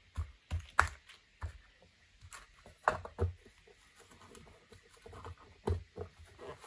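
Hinged lid of a wooden box, full of metal watch crowns, being closed, then hands handling the closed box: a scatter of light wooden knocks and clicks, the loudest about a second in and about three seconds in.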